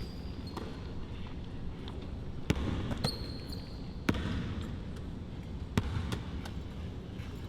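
A basketball bouncing on a court a few times, with a short high squeak about three seconds in, over a steady gym hubbub.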